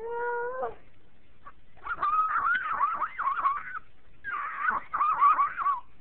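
A toddler laughing in a high, squealing voice: a short rising squeal, then two bursts of fast up-and-down warbling several times a second that sound like a car alarm.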